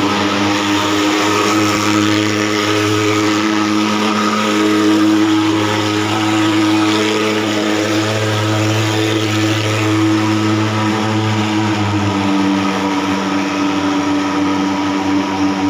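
Portable thermal fogging machine running, a loud, steady buzzing drone with a hiss on top, as it puts out insecticide fog.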